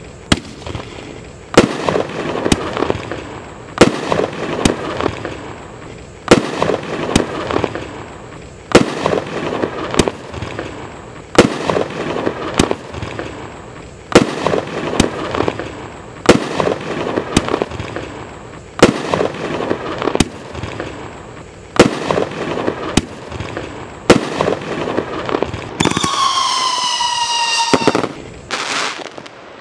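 Machine Made "Here Comes The Alarm" firework cake firing a shot about every two and a half seconds, each a sharp bang trailing off into crackle. Near the end a whistling tail sounds, its pitch falling slowly, followed by two more bangs.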